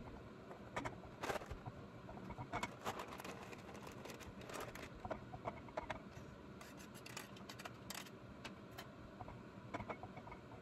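A wooden spoon stirring shell pasta in a stainless steel saucepan: faint, irregular scrapes and clicks.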